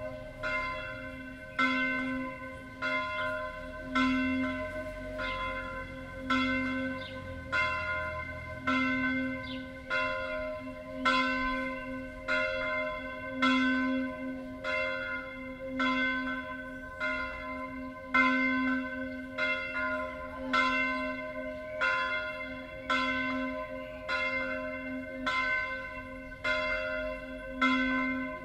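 Church bell V, a C4 (Do4) bell cast by Carlo Chiappani of Trento in 1906, swinging alone in the Tyrolean style. Its clapper strikes about once every 1.2 seconds, and each stroke rings on into the next.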